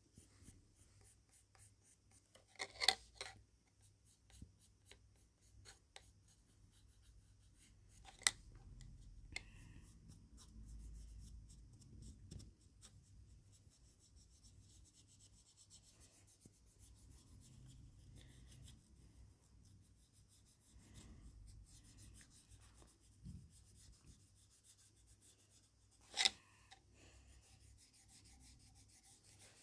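Felt-tip marker scratching and rubbing faintly as it colours in a blank Christmas ornament, in short strokes. A few louder knocks break in, the loudest near the end.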